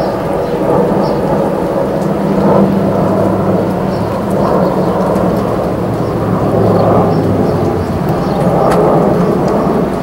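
Outdoor tornado warning siren sounding in the distance during its monthly test, swelling and fading several times under a loud, steady rumble.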